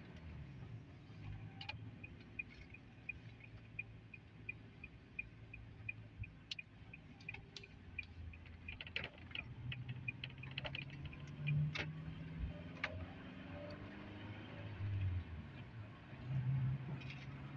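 Car cabin noise while driving: a steady low engine and tyre rumble. Through the first half a turn-signal indicator ticks about three times a second, and a few scattered sharp clicks follow.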